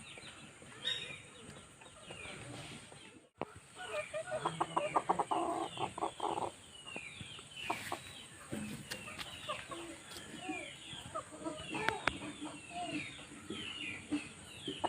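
Fancy chickens clucking and calling, with many short high chirps throughout and a run of rapid clucks about four to six seconds in.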